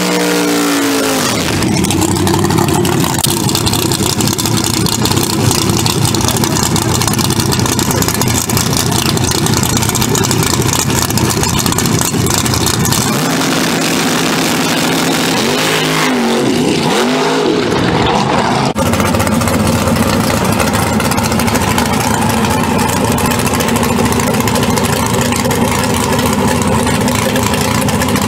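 Drag-racing car engines running loud. A first-generation Camaro's engine revs and holds high throttle for about ten seconds, then blips up and down a few times. About two-thirds of the way in another drag car's engine takes over, running steadily with a deep rumble.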